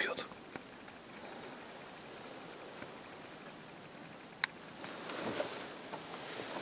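Crickets chirping in a high, rapid pulsing trill that settles into a steady high buzz. A single sharp click about four and a half seconds in.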